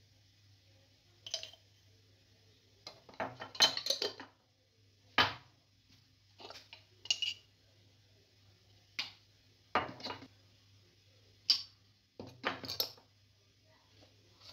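Metal teaspoon clinking and tapping in short bursts every second or two as ground spices are scooped and sprinkled. A faint steady low hum runs underneath.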